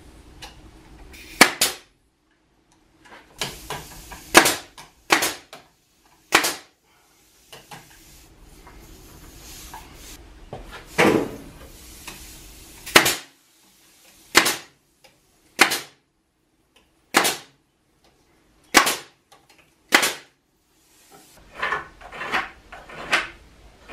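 Nail gun driving nails into wooden boards: single sharp shots every one to two seconds, about ten in all, with a cluster of lighter knocks near the end.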